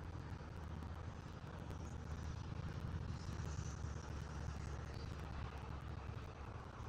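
Steady low outdoor rumble, swelling slightly midway, with faint high chirps now and then.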